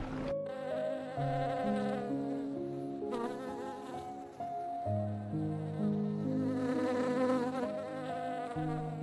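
Honeybee buzzing with a wavering pitch, starting abruptly just after the start, over soft background music of slow held notes.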